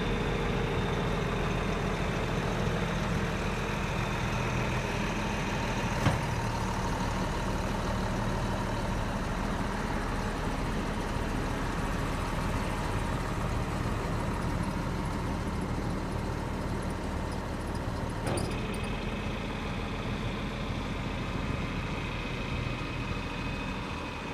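An engine running steadily at an even speed, with a sharp click about six seconds in and a fainter one a little after eighteen seconds.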